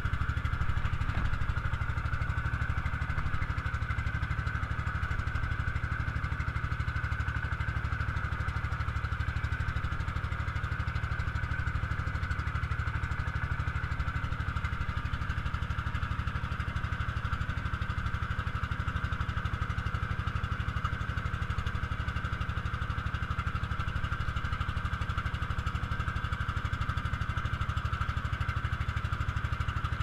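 Outrigger boat's motor running steadily as the boat cruises, a constant engine drone with a fast even pulse.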